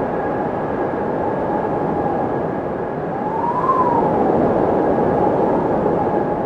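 Windmill turning in the wind: a steady rushing noise, with a whining tone that rises and falls once, peaking a little past halfway, and a fainter steady higher tone throughout.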